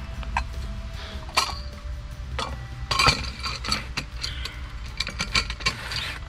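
Metal pipe clamp being handled and fitted around a 160 mm plastic well casing: a string of irregular clinks and knocks from the metal parts against each other and the pipe, the loudest about three seconds in.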